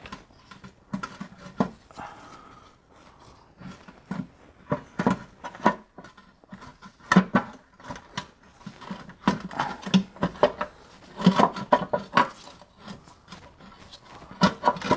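Irregular knocks, clunks and scrapes as a loosened BMW E46 oil pan is wiggled and worked down past hoses and the power steering pump. The loudest knocks come in the second half.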